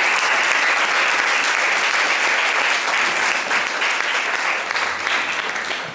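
Audience applauding, steady and dense, dying away at the end.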